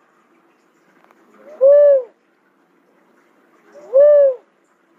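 Cuckoo-dove calling: two loud, single whooping notes about two seconds apart, each rising then falling in pitch, in a call it repeats at an even pace.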